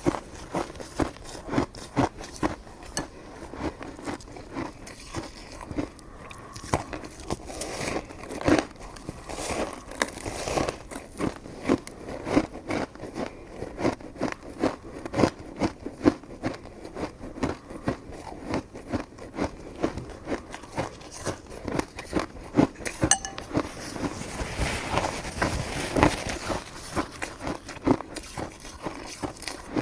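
Close-miked eating: chewing and wet mouth smacks on soft, sticky coconut rice cake, an irregular run of short clicky sounds a few times a second.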